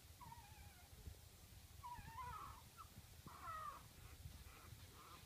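Very young puppies squealing faintly in high, wavering cries, then giving a run of short squeaks about twice a second near the end: newborns crying while waiting for their mother.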